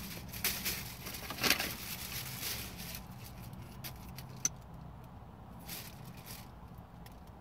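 Soft rustling and a few small clicks of objects being handled, over a steady low hum inside a car.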